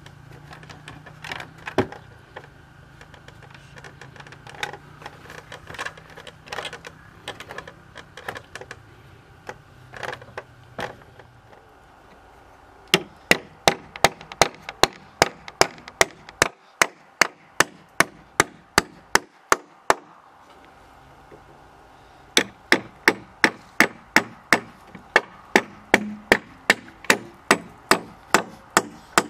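Wood being struck with a hand tool: first quieter, scattered knocks, then a fast, even run of sharp blows, about two or three a second, which breaks off briefly and starts again.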